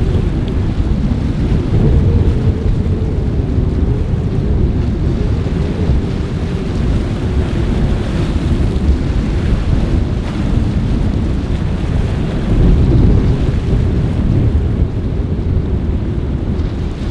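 Wind buffeting the microphone with a steady low rumble, over the running of a small boat's engines and choppy water.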